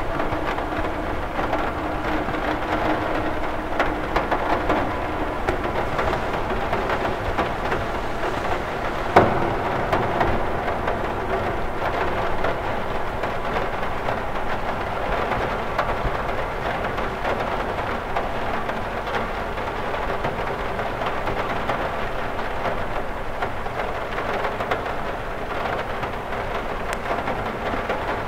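Rain falling on a cathedral window: a steady, even wash of drops, with one sharper tap about nine seconds in.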